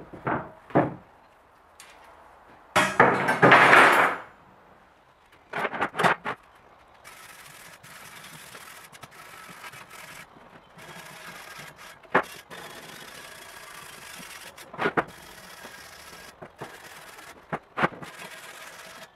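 Heavy rusty steel channel handled on a plywood workbench: a few knocks, then a loud scrape about three seconds in as it is set down and shifted. After that, a long stretch of steady scraping along the steel, broken by short pauses and a few sharp knocks.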